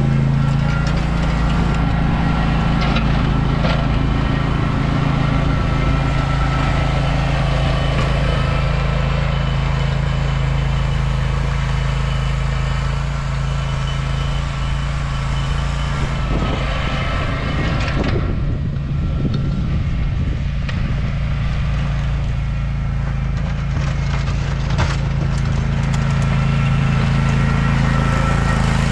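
John Deere Z530R zero-turn mower engine running steadily under load.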